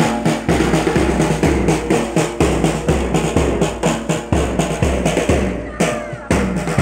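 Marching drums, a bass drum and a snare drum, beating a steady march rhythm with several strikes a second, breaking off briefly about six seconds in.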